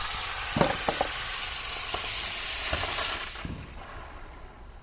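A firework hissing steadily as it sprays sparks, with a few sharp crackles, then dying out about three and a half seconds in.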